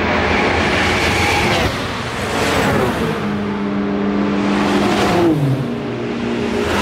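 Race cars passing one after another at speed, each engine note dropping sharply in pitch as it goes by: one about a second and a half in, another just past five seconds in, with the next car closing near the end.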